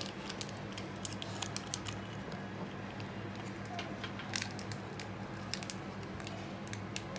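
Quiet room tone: a low steady hum with scattered small clicks and crackles.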